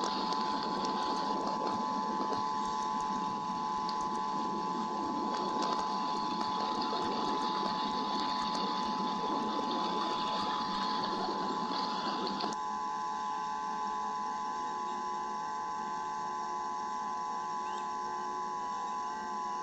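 Rain pattering on an eagle-nest camera and its microphone during a thunderstorm: a dense crackle over a steady electrical whine from the camera's audio. The patter cuts off suddenly about two-thirds of the way through, leaving the whine and a faint hiss.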